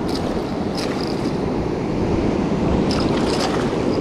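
Steady rush of river water pouring over a weir, with a few small splashes as a hooked small pike thrashes at the surface.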